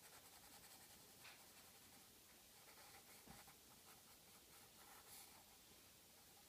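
Faint scratching of a graphite pencil drawing on paper in short strokes, a little louder about a second in and again near five seconds, with one soft bump just past three seconds.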